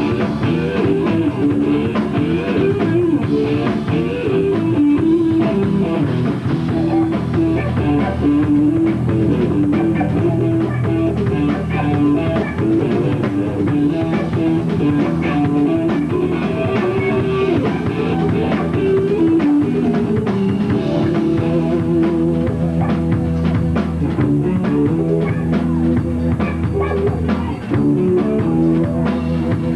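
Rock band playing live: amplified electric guitars over a drum kit, loud and steady.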